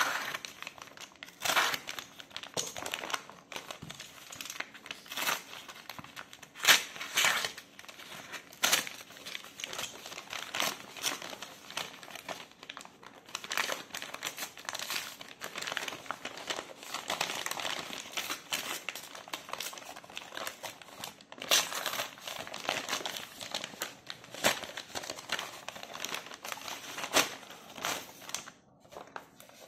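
Brown paper courier bag being crumpled and torn open by hand: irregular crinkling and rustling with a few sharp, louder crackles, dying down near the end.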